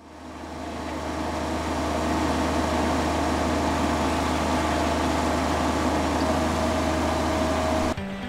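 Engine of a Toro TX compact utility loader running steadily under load while it works a hydraulic earth auger, with a strong low hum. A faint thin whine joins about six seconds in, and the sound cuts off abruptly near the end.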